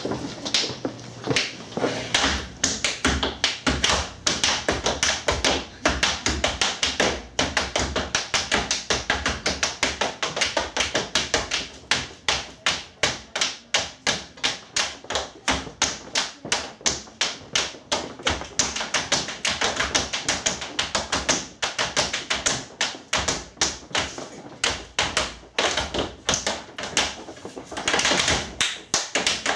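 Two tap dancers' metal-plated tap shoes striking a wooden stage in fast, continuous rhythmic patterns of sharp clicks.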